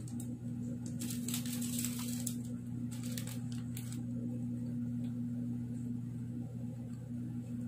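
Plastic chocolate-bar wrappers crinkling and crackling as they are handled, mostly between one and four seconds in, over a steady low hum.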